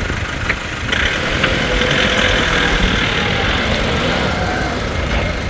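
A vehicle engine idling with a steady low rumble. A hiss joins in about a second in and fades out near the end.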